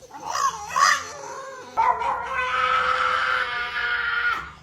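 A dog making strange vocal noises: a couple of short wavering yowls, then from about two seconds in one long, steady, drawn-out howl.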